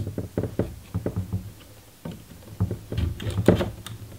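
DDR3 RAM sticks being handled and pressed into a motherboard's memory slots: a run of small plastic clicks and knocks, louder near the end as a stick is pushed home against the slot's latches.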